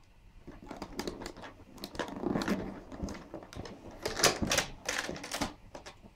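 Hands pulling rubber bands off a cardboard shoebox: the bands and fingers rub and scrape along the cardboard in a quick run of sharp clicks and scuffs, loudest about four to five and a half seconds in.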